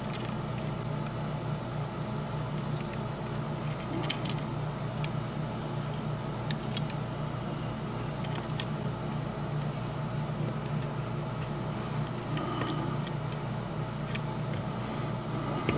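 Steady background hum, with a few faint, scattered clicks and taps of small model-locomotive parts being handled.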